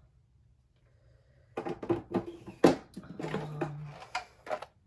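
Washi tape rolls clattering in a clear plastic organizer as it is handled: a run of knocks and rattles starting about a second and a half in and lasting about three seconds, with a short low drone in the middle.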